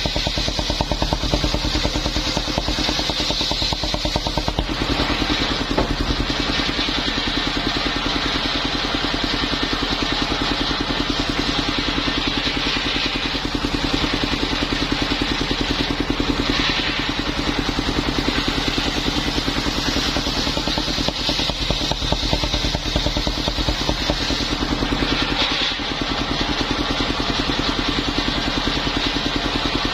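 Engine of a mobile circular-saw sawmill running steadily at an even pace, with only small changes in tone.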